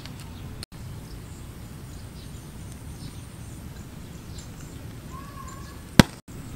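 Outdoor ambience: a steady low rumble with a short bird call about five seconds in, then a single sharp click. The sound cuts out for an instant twice.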